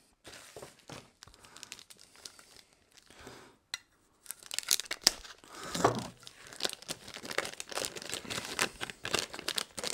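Plastic packaging crinkling as hands handle the bagged power cable from the box. It is faint and sparse for the first few seconds, then busier and louder from about four seconds in.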